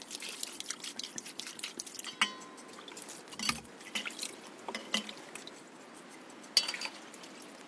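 Cooking clatter: small clinks and taps of utensils against dishes and pots, with one short ringing clink and a few louder knocks, the loudest near the end.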